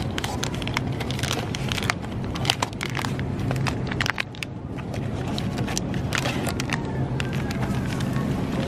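Drink-mix stick packets rustling and clicking as they are handled and pulled from a shelf display, the clicks thinning out about halfway through, over a steady low hum.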